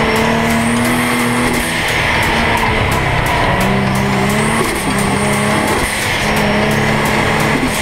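Twin-turbo Nissan 370Z with a 3.7-litre V6 driving hard through bends, engine and road noise steady, with a song with a steady beat playing over it.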